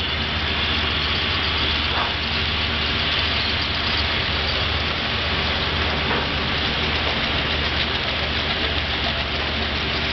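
HO scale model passenger cars rolling past close by on the track, a steady rolling noise with a low hum underneath. Two faint clicks come about 2 and 6 seconds in.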